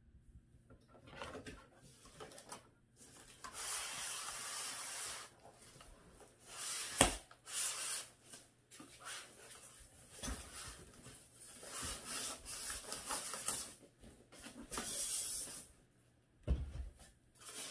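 Cardboard, styrofoam packing and plastic wrap rubbing, scraping and rustling as a boxed grill is unpacked, in uneven spells. A few dull knocks come in between, the sharpest about seven seconds in.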